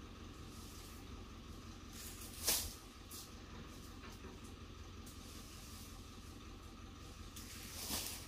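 Two rustling swishes of palm fronds, a short sharp one about two and a half seconds in and a longer one that swells near the end, over a steady low rumble.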